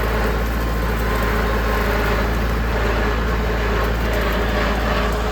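Tractor engine running steadily, a constant low rumble with a steady hum.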